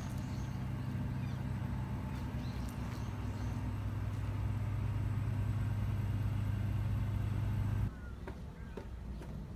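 A machine's steady low hum, which cuts off abruptly near the end.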